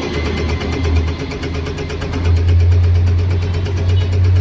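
An engine running steadily with a low, evenly pulsing drone that grows louder about two seconds in.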